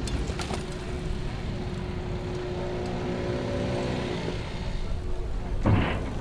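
A motor vehicle engine running with a steady low rumble and hum; a higher engine note swells and fades around the middle. A short, louder noisy burst comes near the end.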